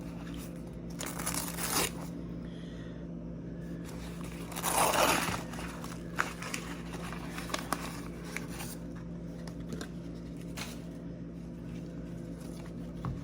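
Rustling and crinkling of plant packaging as a potted plant is handled, in two longer spells with small clicks between, over a steady low hum.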